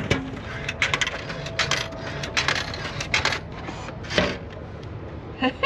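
Coins clinking into a vending machine's coin slot: a run of sharp metallic clicks, many in quick pairs, over about three and a half seconds.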